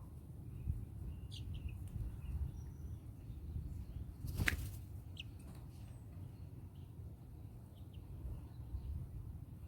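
Birds giving short high chirps and peeps every second or two over a steady low rumble, with one louder, sharp chirp-like sound about halfway through.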